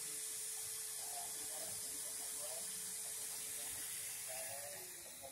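Red corded electric drill running at steady speed with its chuck gripping stretched wire strands to twist them, a steady hiss with a low hum, winding down near the end.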